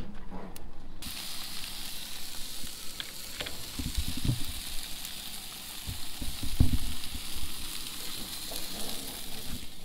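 Hamburger patties and hot dogs sizzling on a Weber Spirit gas grill, a steady hiss that starts suddenly about a second in. A few low knocks come through it.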